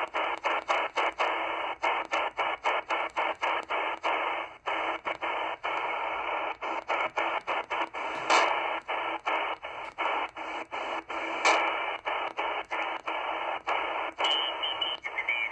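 XHDATA D-808 shortwave receiver's speaker hissing with band noise in upper sideband mode as it is tuned step by step up the 20 meter amateur band. The hiss is cut by brief silences two or three times a second, the DSP receiver muting at each tuning step, with two louder crackles a little past halfway and about three-quarters through.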